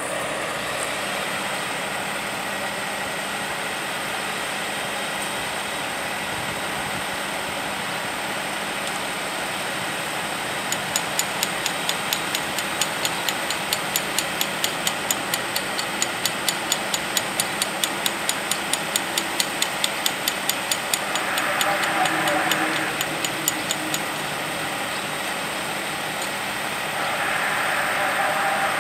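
Steady running noise of an idling work truck at a rail welding site. From about ten seconds in to about twenty-four seconds, a run of sharp, even ticks comes at about three a second.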